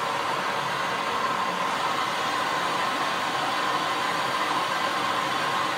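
Gas torch flame burning with a steady, even hiss.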